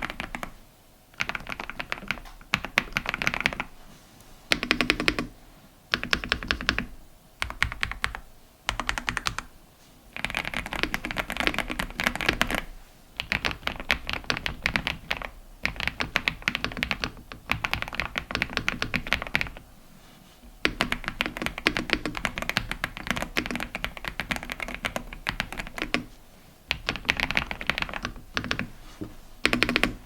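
Typing on an AULA F108 Pro full-size mechanical keyboard with pre-lubed linear switches: quick runs of keystrokes broken by short pauses, the runs growing longer in the middle.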